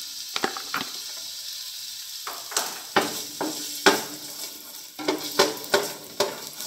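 Chopped garlic sizzling in hot olive oil in a stainless steel pot, with a steady hiss. A wooden spoon stirs and scrapes against the pot in irregular strokes and knocks.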